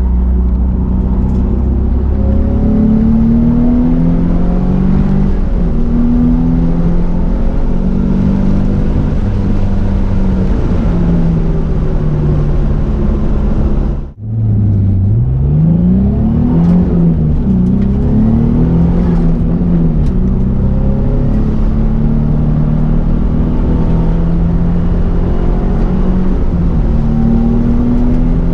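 Turbocharged 2005 Nissan 350Z's V6 heard from inside its gutted race cabin under hard track driving, the revs repeatedly climbing and dropping through gear changes. The sound briefly drops out about halfway through.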